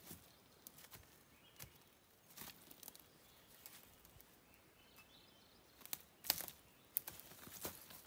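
Faint rustling and crackling of dry forest-floor litter (needles, twigs and bark) under a person's boots and hands, in scattered snaps with the loudest cluster of footsteps about six seconds in.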